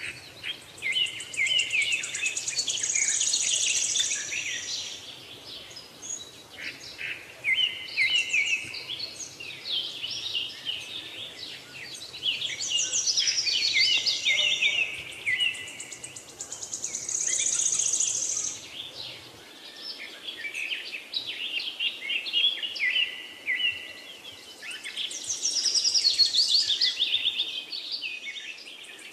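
A dense chorus of birds chirping and singing, with a loud high trill coming back every few seconds.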